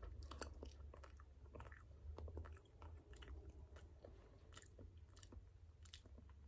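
Faint chewing: a person eating with the mouth closed, with small irregular wet clicks and crunches.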